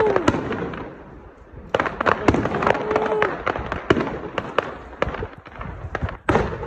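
Aerial fireworks bursting: an irregular string of sharp bangs and crackles, coming thicker from about two seconds in.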